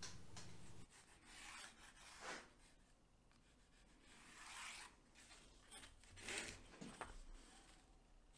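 Faint scratching of a pencil drawn along a steel straight edge across birch plywood, in several short strokes, with the rule shifted on the board between them.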